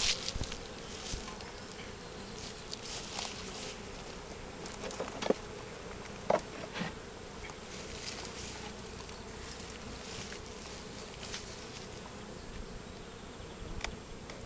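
Honeybees buzzing steadily around an open hive, a swarm-like hum, with two sharp clicks about five and six seconds in.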